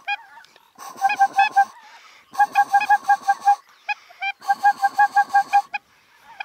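Goose honking in quick, evenly spaced runs of about eight notes a second: three runs with a few single honks between them, all on much the same pitch.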